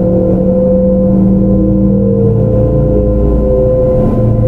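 Kintetsu 5800 series electric train running, its Mitsubishi GTO-VVVF inverter and traction motors giving several steady tones that slide slowly in pitch, over a low rumble of wheels on rail.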